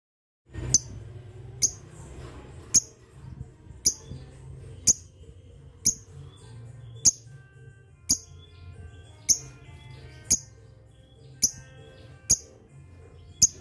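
Lovebird calling in its long 'ngetik' typing style: short, loud, shrill chirps about once a second over softer rapid chatter. A steady low hum runs underneath.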